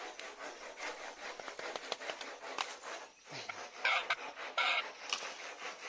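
Close-miked chewing and crunching: a rapid, rasping run of small clicks, with a couple of sharper crunches about four seconds in.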